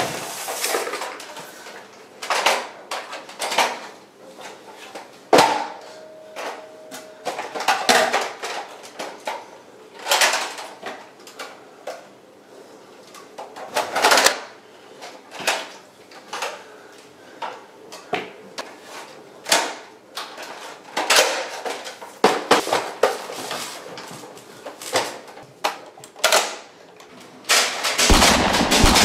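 Plastic clicks and clacks of a Nerf blaster being handled and its clip magazine loaded, with scattered knocks at uneven intervals. About a second before the end a sudden loud, dense clatter starts.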